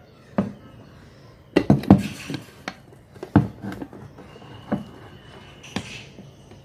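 A metal frying pan and a ceramic plate knocking and clattering against each other as the pan is turned upside down onto the plate to flip out the omelette. It is a series of sharp knocks, with the loudest cluster about one and a half to two seconds in.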